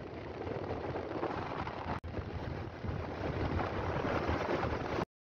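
Wind rushing over the microphone of a moving motorcycle, a steady rumbling noise. It drops out for an instant about two seconds in and cuts off suddenly about five seconds in.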